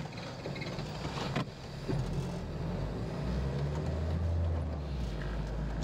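Car driving, heard from inside the cabin: a low engine and road rumble that grows louder about three seconds in, with a couple of light clicks before that.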